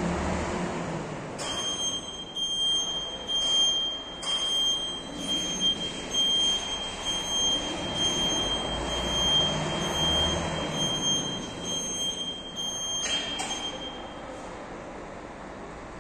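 Power unit of a Celette Menyr cab straightening bench's pulling tower running, with a steady high-pitched whine over a rushing noise. The whine starts about a second and a half in and stops near the end.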